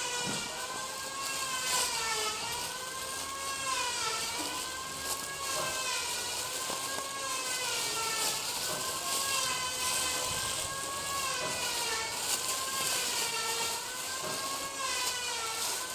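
A machine runs steadily with a loud whine that sways up and down in pitch every couple of seconds, over a constant hiss.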